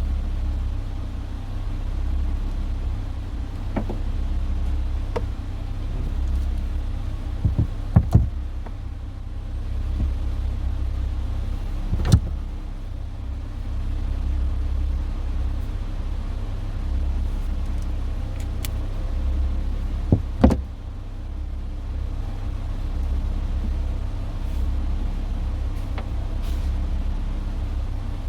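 A 2007 Dodge Charger's engine idling steadily with reverse selected. A few sharp clicks and knocks from handling the wiring and trim come at about eight, twelve and twenty seconds in.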